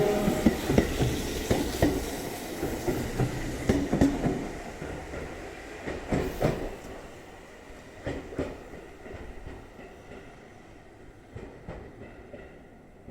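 JR 373 series electric train pulling away, its wheels clacking over the rail joints as it rolls off, fading steadily into the distance.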